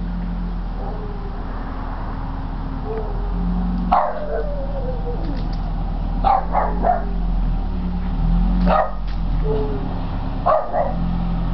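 Boston terrier barking in short, high yelping barks. A single bark with a falling tail comes about four seconds in, then quick runs of two or three barks.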